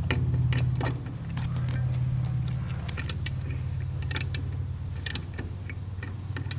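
Light metallic clicks and taps from an Edelbrock carburetor and its brass float being handled by hand while the float height is set. Underneath is a steady low hum.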